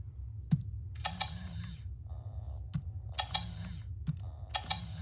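Hasbro 2005 i-Dog robot dog toy giving out three short bursts of high-pitched electronic chirping: about a second in, past the middle, and near the end. Its small motor whirs underneath, rising and falling as the head and ears move. Three sharp clicks fall between the bursts.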